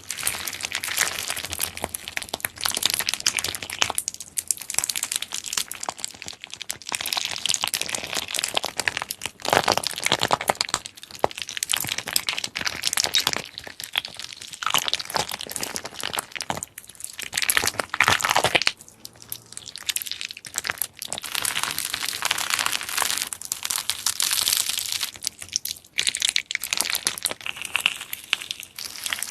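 Slime being squeezed, pressed and stretched by hand, giving dense crackling and popping in repeated bursts with short lulls.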